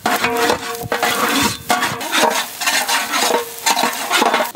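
Sliced shallots, green chillies and curry leaves sizzling in hot cow ghee in a large metal pan, stirred with a ladle that scrapes against the pan in repeated strokes.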